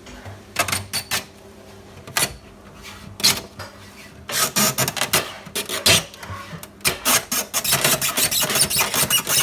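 A few sharp clicks and knocks, then from about four seconds in a fast, dense clatter of clicks and scraping, like hard objects being rattled or scraped against each other.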